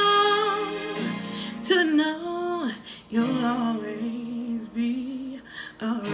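A woman singing a soulful R&B ballad over instrumental backing. A long held note with vibrato fades out about a second in, and shorter wordless phrases follow, one sliding down near the middle.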